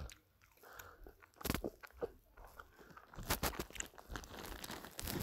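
Gummy candy being chewed right at the microphone: irregular chewing clicks and mouth noises, loudest about a second and a half in and again around three seconds in.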